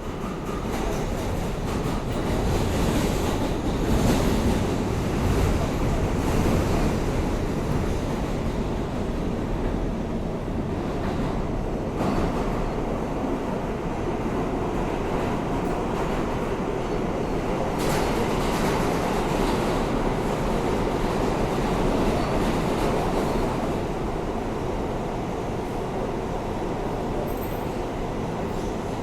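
New York City subway R160A-2 car running at speed through the tunnel, heard from inside the car with its air conditioning out: a steady rumble of wheels on rail. A sharp clack comes about 18 seconds in.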